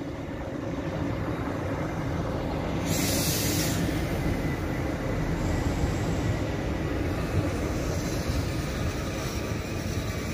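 Red DB Regio multiple unit rolling along the station track, its wheels and running gear rumbling steadily. A short high hiss comes about three seconds in.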